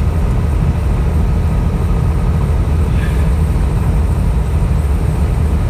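Steady low rumble of a truck driving slowly on a snowy road with tire chains fitted, heard from inside the cab.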